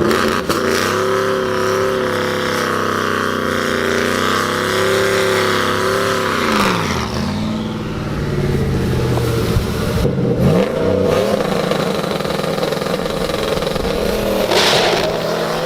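A car engine under hard acceleration, holding high revs for several seconds. The revs drop sharply about seven seconds in, then climb again, with another quick dip and rise around ten seconds.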